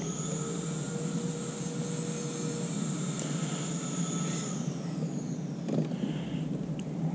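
Electric trolling motor on a bass boat running with a steady whine made of several thin tones; about four and a half seconds in, the highest tone slides down in pitch as the motor slows.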